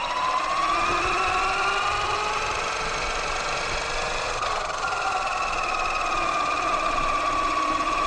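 Axial Yeti XL RC truck's battery-powered electric motor and geared drivetrain whining as it drives along the road. The whine rises in pitch as the truck picks up speed at the start, then shifts up again about five seconds in and slowly eases down.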